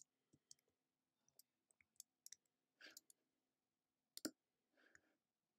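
Faint, scattered computer keyboard key clicks as keys are pressed to steer, with a sharper knock about four seconds in.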